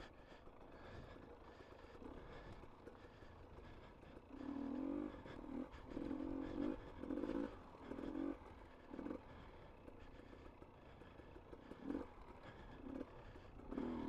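Heavy, voiced breathing of a rider close on the mic, in a run of short loud gasps from about four seconds in, a pause, then more near the end. A motorcycle engine runs low underneath.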